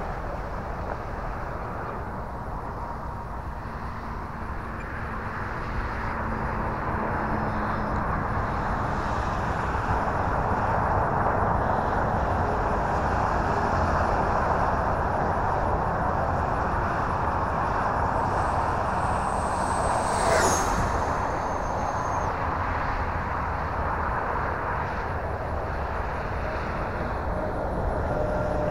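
Electric ducted-fan RC jet (Viper 70 mm fan on a 6S battery) in flight: a steady rushing fan noise, with a high whine that drops in pitch as the jet passes close about twenty seconds in.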